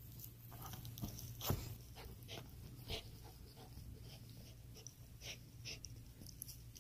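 Toy poodle chewing and tugging at a plush turtle squeaky toy: soft irregular gnawing, crunching and fabric rustles, with a few sharper bites about one and a half and three seconds in.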